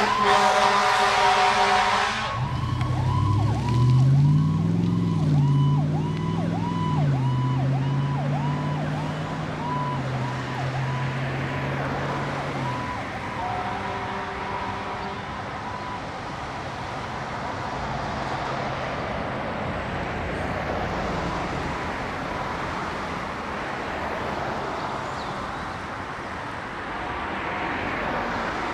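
Ambulance air horns blaring, cutting off about two seconds in. The electronic siren follows, yelping in quick repeated falling sweeps that fade away over the next ten seconds and leave only road traffic noise.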